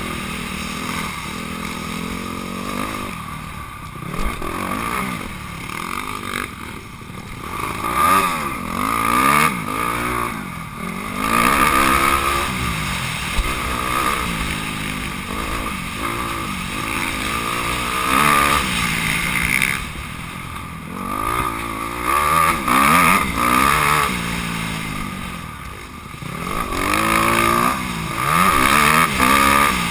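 Honda CRF250R four-stroke single-cylinder motocross engine, recorded close up from a camera on the bike. It revs up and drops back again and again as the throttle is opened and closed while riding the track.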